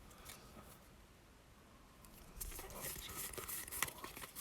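Faint handling noise of a Pokémon card booster pack and its cards: light rustling and small clicks that start about two seconds in, after a near-quiet start.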